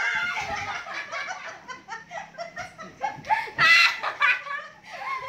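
A group of women laughing hard in bursts, with a loudest, high-pitched peak of laughter a little over halfway through.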